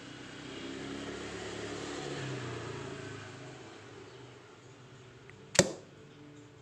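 A single sharp snap about five and a half seconds in as the homemade mini bamboo crossbow is shot and its bamboo bolt strikes the cardboard target. Before it, a low rumble swells and fades.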